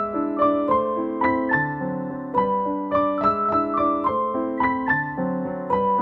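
Background piano music: a gentle melody of single notes over soft chords, struck at an even pace.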